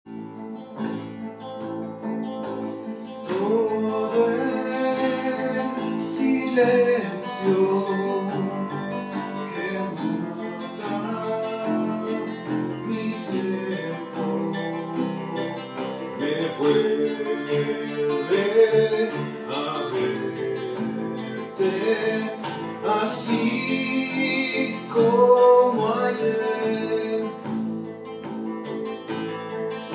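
Acoustic trio playing an instrumental passage: nylon-string classical guitar and acoustic bass guitar, with a harmonica carrying the melody from about three seconds in and some notes sliding up in pitch.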